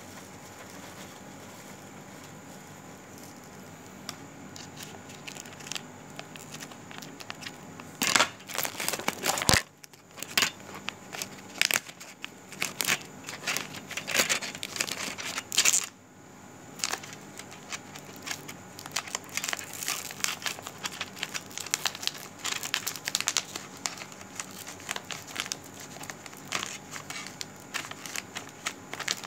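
Irregular crackling and rustling right at the phone's microphone, like something rubbing or handling close against it. The crackles begin a few seconds in and come thickest in two loud clusters around the middle.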